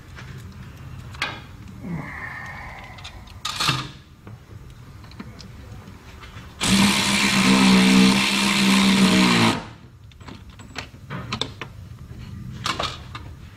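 Handheld power driver running for about three seconds, driving a self-tapping screw through a side-step mounting bracket into the truck's rocker panel. Small clicks and knocks of handling before and after.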